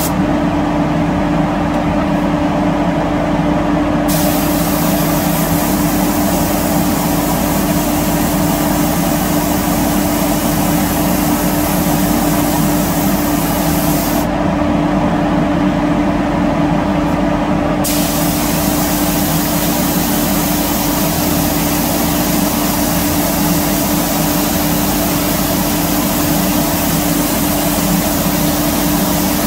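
Abrasive blast cabinet: the hissing rush of the blast gun on a chrome bumper over-rider, over a steady machine hum. The hiss starts about four seconds in, cuts out for a few seconds midway, then runs on again.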